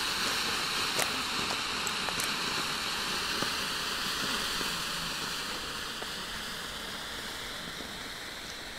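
Smoke grenade burning on the ground, giving off a steady hiss of escaping smoke that grows fainter in the second half, with a few faint ticks.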